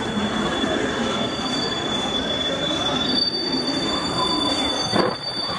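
Indian Railways passenger coaches rolling slowly past with their wheels squealing: a steady high-pitched squeal, with a second, higher squeal joining about three seconds in, over the rumble of the train. There is a single knock near the end.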